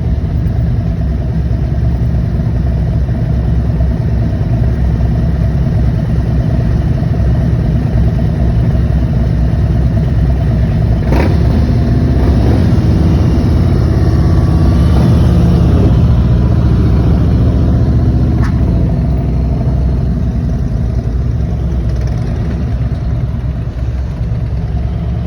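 Several Harley-Davidson police motorcycles' V-twin engines idling together in a steady deep rumble. Engine speed rises and falls for a few seconds in the middle, and there are two sharp clicks, about eleven and eighteen seconds in.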